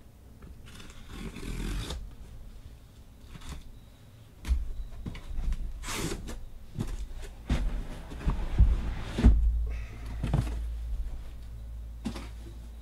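Cardboard shipping case being opened by hand: the flaps are rubbed and scraped back, then the boxes inside are pulled out and set down on the table with a series of knocks and heavy thumps in the second half.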